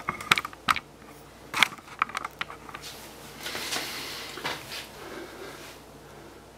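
Handling noise: several sharp clicks and taps in the first couple of seconds, then a soft brushing sound about halfway through.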